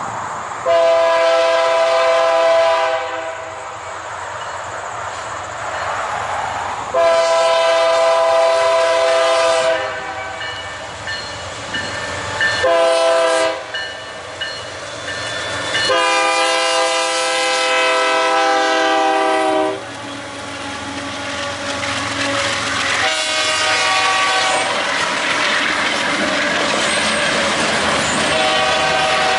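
Canadian Pacific diesel locomotive's air horn sounding the grade-crossing signal: two long blasts, a short one, then a long one. After the last blast, the locomotives pass close by with steady engine rumble and wheel noise on the rails.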